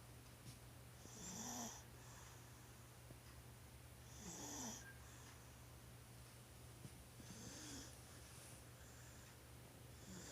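One-year-old toddler snoring in his sleep, soft snores coming about every three seconds.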